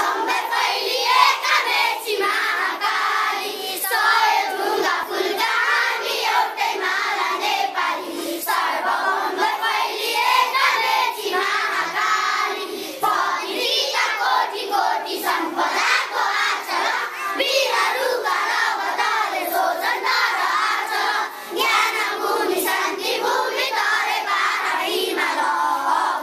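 A large group of schoolchildren singing together in unison, without a break.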